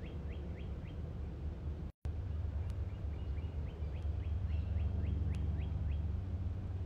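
A bird calling a quick series of short, downward-slurred chirps, about four a second, over a steady low rumble. The sound cuts out for an instant about two seconds in; the chirping starts again shortly after and stops about six seconds in.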